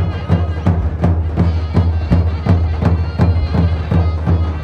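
Traditional-style music: a drum beating a steady rhythm about three to four times a second under a sustained, droning melody.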